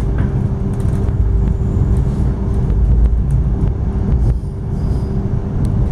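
Inside a moving X'Trapolis electric suburban train: a steady low rumble of the train running along the track, with a steady hum over it and a few faint clicks.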